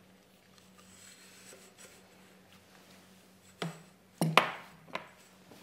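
A dish set down on a glass coffee table: four sharp clinks in the second half, the third the loudest with a short ring after it.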